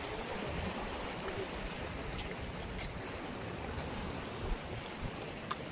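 Sea waves washing over shoreline rocks, a steady wash of surf, with wind gusting on the microphone as a low rumble and a few faint ticks.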